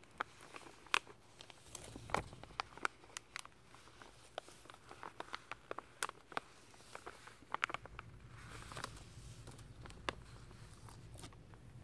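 Clear plastic sheeting wrapped around a carpet roll being crinkled and pulled by hand: a steady run of irregular, sharp crackles.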